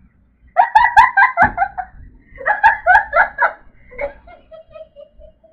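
Women laughing hard in two bursts of rapid, pulsed laughter, dying away to a thin, quiet sound near the end.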